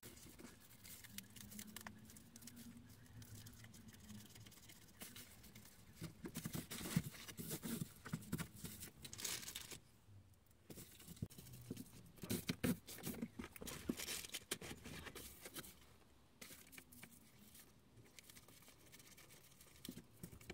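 Reflective bubble-foil insulation sheet crinkling and rustling as it is handled and pressed against a windscreen, in irregular bursts.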